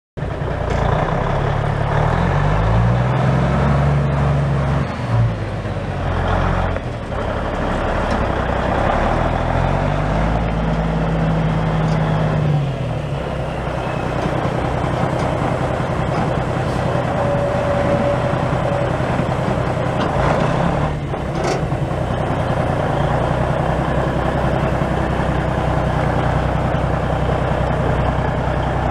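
The Cummins N14 inline-six diesel of a 1998 Volvo VN semi tractor running. Its pitch rises and falls twice in the first half, then it runs steadily to the end. A brief sharp sound comes about two-thirds of the way in.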